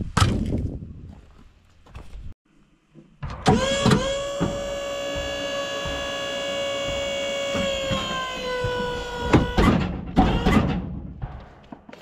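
A small electric motor whines steadily for about six seconds, its pitch sagging slightly near the end, with clunks and knocks before and after it.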